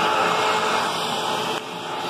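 Hoover WidePath (Tempo) bagless upright vacuum cleaner running: a steady motor whine and rush of air, briefly quieter near the end.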